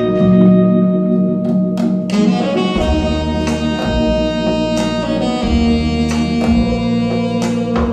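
Jazz music played back through hi-fi loudspeakers: held melody notes over a pulsing bass line, with guitar and light percussion.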